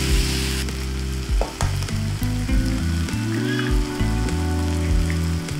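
Chopped vegetables and sausage sizzling as they fry in a pan, stirred with a spatula. The sizzle is strong for the first half second, then quieter, with a few light taps, over soft background music.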